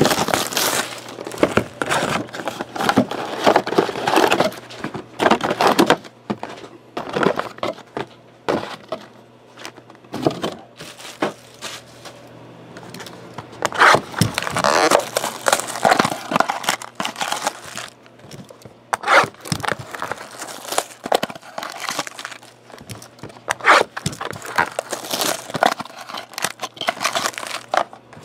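Foil-wrapped trading card packs crinkling and cardboard mini-boxes being torn open and handled as the packs are pulled out, in irregular bursts of rustling with a few quieter stretches.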